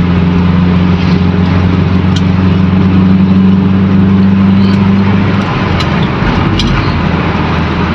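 Toyota 2E 1.3-litre carbureted four-cylinder engine pulling steadily while the car is driven, heard from inside the cabin, running with its vacuum leaks and clogged fuel filter fixed. About five and a half seconds in, the steady engine drone drops away, as when the driver lifts off or shifts, leaving mostly road noise.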